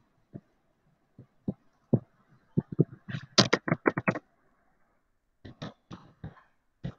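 Computer keyboard being typed on: scattered single key clicks, then a quick run of keystrokes about three seconds in and another short run near the end.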